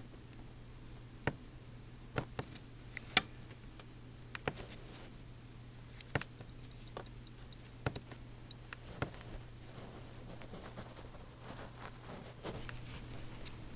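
Scattered light clicks and taps of small tools and parts being handled at a workbench while a replacement dashcam battery is soldered in, over a steady low hum. The sharpest click comes about three seconds in.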